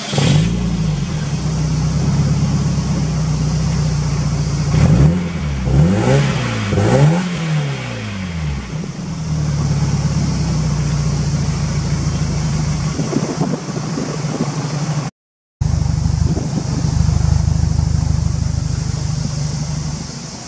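Subaru Impreza WRX STI (GDB) turbocharged flat-four firing up and idling through an APEXi aftermarket muffler. It is blipped three times in quick succession about five to seven seconds in, each rev rising and falling, then settles back to a steady idle.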